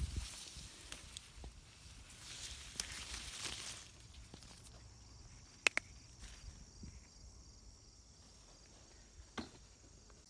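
Leaves and stems rustling as a pepper plant is handled and picked over, in two stretches, with one sharp snap a little past halfway and a softer one near the end. A faint steady insect drone runs underneath in the second half.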